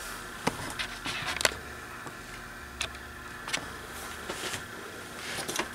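Scattered light clicks and taps, about half a dozen, over a steady low hum: small handling noises at the opened metal UPS chassis.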